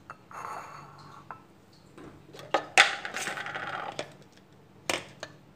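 Kitchen handling noises as spice containers and a spoon are picked up and set down: sharp clicks and clinks, with a louder rustling scrape lasting about a second near the middle.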